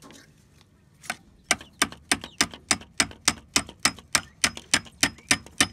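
A steady series of sharp, evenly spaced clicks, about three or four a second, starting about a second in, as a plastic bottle cap is fastened onto a wooden plank to make a chicken feeder.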